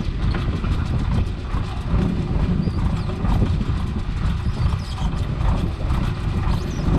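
Fishing boat's engine running with a low rumble and a fast, even clatter of knocks, while wet net mesh is hauled in over the side.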